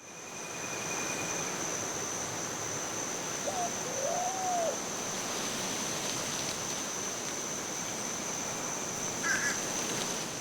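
A single short animal call that rises and then falls in pitch, about four seconds in, over a steady hiss and a constant high, thin whine; a brief fainter call follows near the end.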